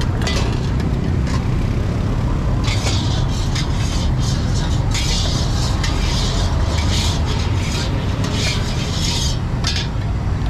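A metal spatula scraping and clicking in a wok as fried rice is stir-fried, with several bursts of sizzling hiss, over a steady low rumble of road traffic.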